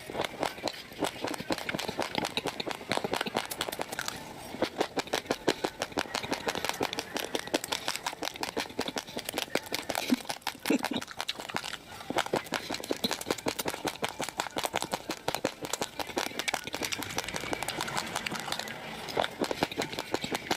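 Raw rice grains being chewed close to the microphone: a fast, continuous run of sharp crunches and crackles, with a few short pauses between mouthfuls.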